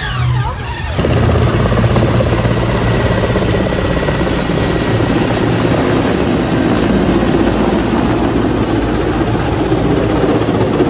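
Helicopter running close by: loud, steady engine and rotor noise with a thin high whine over it, coming in strongly about a second in.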